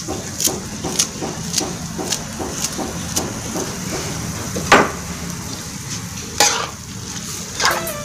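A metal spatula stirs and scrapes instant noodles and vegetables around a metal wok over a steady sizzle of frying. The scrapes come about twice a second at first, with two louder knocks against the pan later on.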